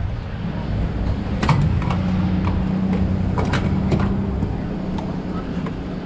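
Gas pump dispensing fuel into a plastic gas can: a steady hum over a low rumble, with a few sharp clicks as the nozzle is handled and hung back on the pump.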